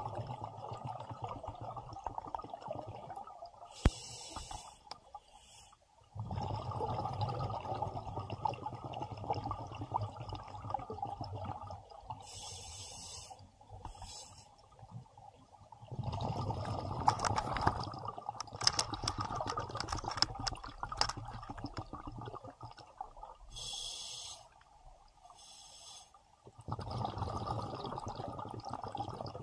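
Diver breathing on an open-circuit scuba regulator underwater: three slow breaths about ten seconds apart, each a short hissing inhale followed by several seconds of gurgling exhaled bubbles. A single sharp click about four seconds in.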